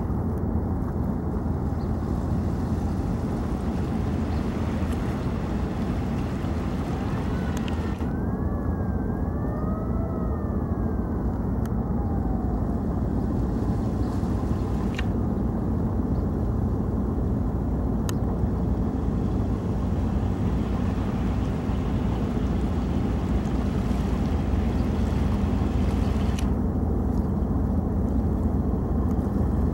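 Steady low drone of a river boat's engine, running evenly. About eight seconds in, a faint wailing tone rises and falls a few times over some four seconds, and a few sharp single clicks are heard.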